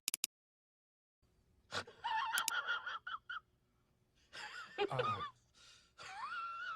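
Meme sound-effect clips played back to back: three quick clicks, then a run of short, high-pitched, squeaky voice-like sounds whose pitch wavers, the last one warbling.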